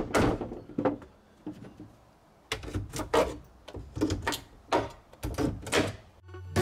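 Claw hammer knocking and prying at the plywood front of an old wooden kitchen cabinet to tear it off: a couple of blows, a short pause, then a quick run of about a dozen knocks on the wood. Background music begins near the end.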